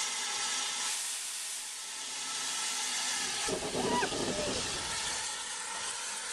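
Steady hiss of steam escaping from a standing saddle-tank steam locomotive. A short, louder rumble breaks in about three and a half seconds in.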